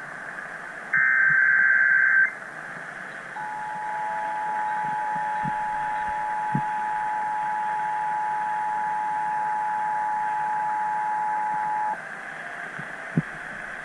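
Emergency Alert System test on a radio broadcast. About a second in, the last burst of the digital SAME header plays as a short, harsh data screech. A couple of seconds later the two-tone EAS attention signal (853 and 960 Hz) sounds steadily for about eight seconds and cuts off sharply, over constant radio hiss.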